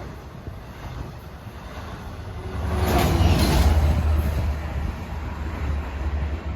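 Long Island Rail Road diesel push-pull passenger train passing on the Montauk branch. The deep rumble swells about two and a half seconds in, with a rush of noise as the rear locomotive goes by, then eases off.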